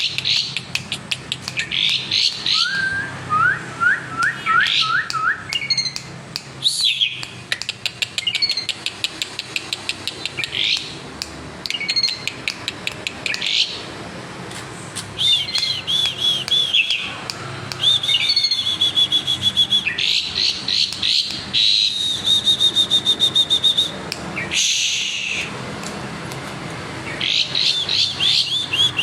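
Asian pied starling singing a long, varied song of rapid clicking rattles, chirps and whistles, with imitated calls of other birds worked in. About three seconds in there is a short run of rising whistled notes, and past the middle comes a long series of quick repeated high notes.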